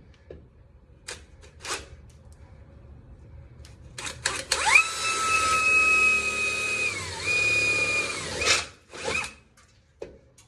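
Electric drill with a large bit boring a hole through a truck's sheet-metal hood, with a few light clicks before it starts. The motor whine rises as it spins up, holds steady, sags briefly partway through, then runs on and stops, followed by a couple of short bursts.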